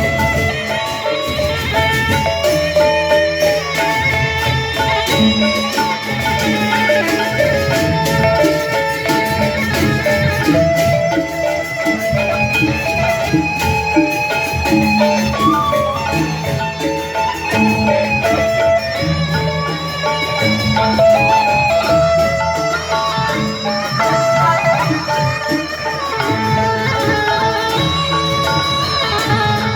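Instrumental traditional-style music: an opening piece with melody instruments playing over a steady drum beat.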